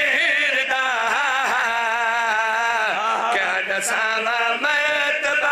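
A man chanting a Punjabi qasida through a microphone, drawing out long wavering held notes with melismatic turns between the words.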